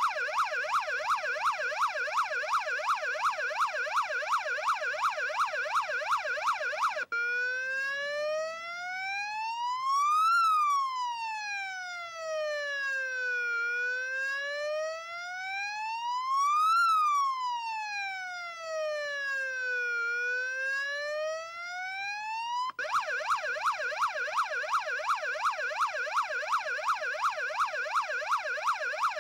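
Police siren sounding close up and switching modes. A fast yelp gives way about seven seconds in to a slow wail that rises and falls twice, then returns abruptly to the fast yelp near the end.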